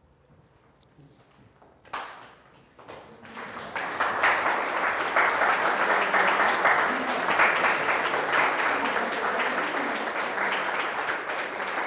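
Audience applauding: a single clap about two seconds in, then clapping that swells quickly to full applause by about four seconds and holds.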